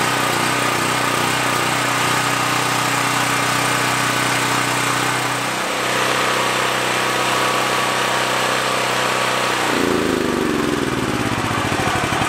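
Generac portable generator's engine, running on propane, runs steadily, then shuts off near the end: its pitch falls as it winds down and slows to a stop.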